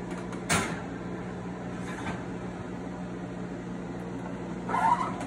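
Metal baking tray clattering as it is slid onto the rack of a gas oven, about half a second in, over a steady low hum, with a brief rattle near the end as the oven door is swung up to close.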